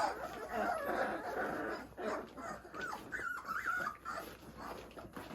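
Several Rhodesian Ridgeback puppies about two and a half weeks old whimpering and squeaking, many short overlapping high whines.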